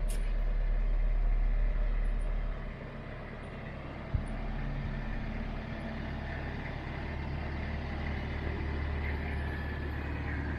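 A large engine running steadily, a low hum with a deeper rumble that eases off after the first couple of seconds. A single short knock comes about four seconds in.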